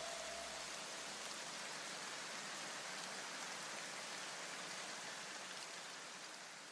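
Faint, even hiss like rain, slowly fading out, with a low tone dying away in about the first second and a half.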